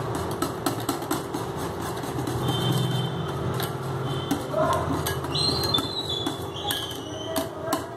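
Wire whisk beating cake batter in a glass bowl: quick, rhythmic clicking and scraping of the wires against the glass over a steady low hum.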